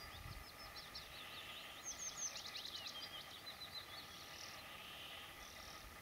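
A small songbird singing high, thin note phrases, building about two seconds in into a fast run of repeated falling notes that then trails off.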